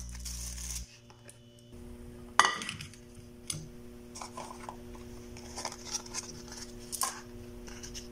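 Kitchen handling sounds: a loud clatter with a short ring about two and a half seconds in as a metal frying pan is set down, then lighter clinks and taps of a plastic tub and dishes, over a steady low hum.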